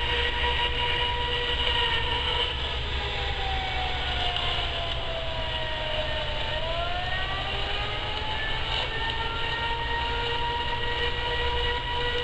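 Outdoor tornado warning siren wailing, a steady tone whose pitch sags slowly and then climbs back about halfway through, over a steady hiss.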